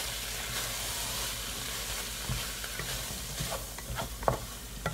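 Chicken, carrots and cauliflower rice sizzling in a hot pan as they are stirred together, with a steady frying hiss. In the second half a utensil knocks against the pan several times, loudest about four seconds in.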